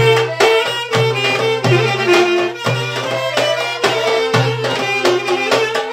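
Balkan folk band music: a sustained melody over a strong, regularly repeating bass-and-percussion beat.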